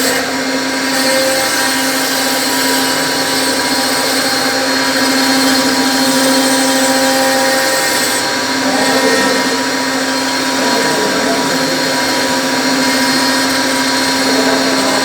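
CNC router spindle running steadily while machining wood, a constant whine over a loud rushing noise.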